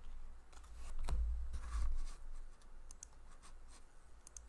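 Hockey trading cards being flipped through by hand, the card stock sliding and clicking against itself in short, scattered ticks, with soft low bumps of the cards and hands on the table about a second in.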